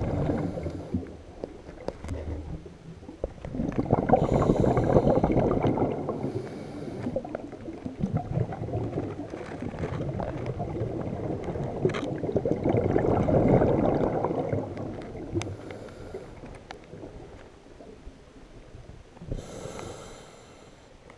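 A diver's exhaled air bubbling underwater, heard through the camera housing: four rumbling bursts of a few seconds each, with short hisses between them, growing quieter toward the end.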